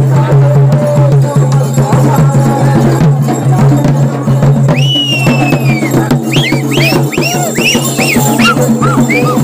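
Double-headed barrel drums beaten in a fast, dense rhythm. About halfway in, shrill whistling comes over the drums: one long note, then a run of short rising-and-falling chirps.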